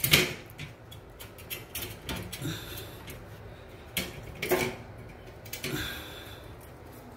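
Interior door being handled by its lever handle: a sharp latch click right at the start, then a few lighter knocks and clicks.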